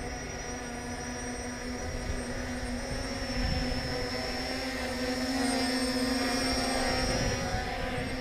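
Ao Sen Ma CG035 quadcopter's brushless motors and propellers buzzing in flight, a steady multi-pitched hum whose pitch shifts with throttle changes. It grows louder from about three seconds in.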